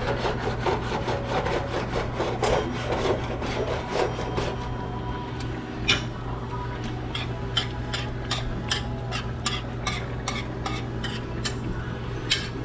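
A spoon scraping and stirring in a cast-iron black pot of simmering catfish gravy for the first few seconds, then a run of sharp clicks, about two a second. A steady low hum runs underneath.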